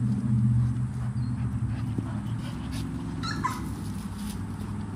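American bully dogs play-fighting, making dog vocal sounds that include a short whimper a little past three seconds in. A steady low hum runs underneath in the background.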